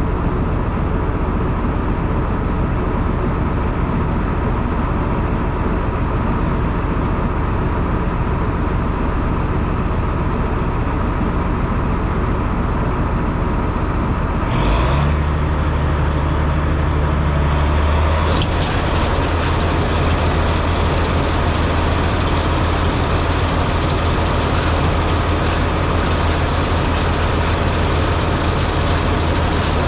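Farm tractor engine running steadily while hauling a load of chopped corn silage. About halfway through, a deeper steady hum sets in, and a few seconds later the engine sound grows a little louder.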